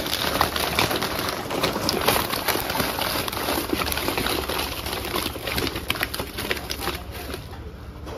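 Live freshwater pomfret flapping inside a wet mesh keep net on a weighing scale, with the net rustling and water splattering: a dense run of irregular slaps and crackles that eases off near the end.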